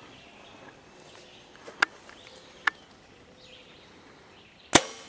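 A compound bow fired: one loud, sharp crack of the string and limbs as the release lets go, near the end, after a few seconds held at full draw with only faint outdoor background and a couple of small clicks.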